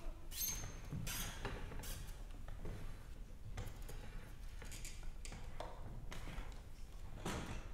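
Soft, irregular puffs of unpitched breath and air noise from the wind instruments of a nohkan, piri, sheng and clarinet quartet, with a brief high squeak just under a second in.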